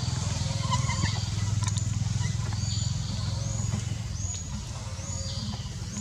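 Outdoor tree-canopy ambience: a steady low rumble, with a short high chirping call repeated about once a second above it.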